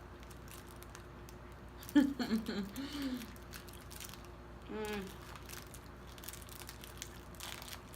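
People chewing bites of a soft snack cake with faint wrapper crinkles, broken by two short wordless "mm"-like voice sounds about two and five seconds in, the first the louder.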